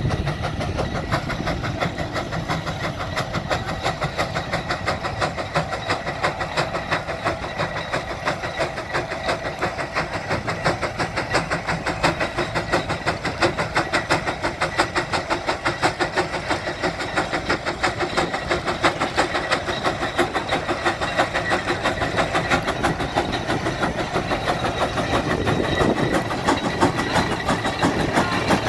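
150 HP Case steam traction engine working hard under load, pulling a 24-bottom plow. Its exhaust beats come in a fast, even chuffing rhythm and grow a little louder near the end.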